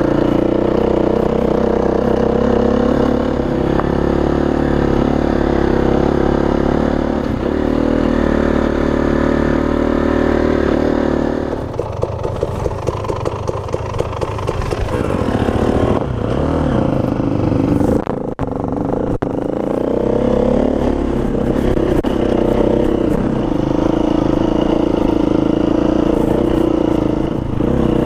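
KTM enduro dirt bike engine running under load, then dropping to idle a little under halfway through, with a couple of sharp knocks, before pulling away and running steadily again.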